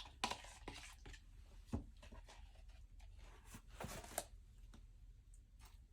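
Quiet, scattered scrapes and clicks of quick-dry drywall patch compound being mixed with a little water.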